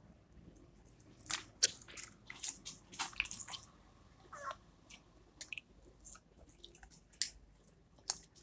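Slime being squished and poked by hand, giving irregular soft clicks and crackles.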